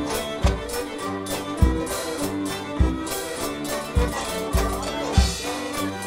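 Live English country dance band playing a dance tune: fiddle leading over melodeon, banjo and bass saxophone, with a drum kit keeping a steady beat of bass-drum thuds about every 0.6 seconds.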